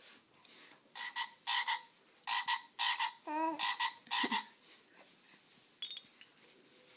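Plush toy frog's built-in croak sound: a quick run of about seven short croaks over about three seconds, then it stops.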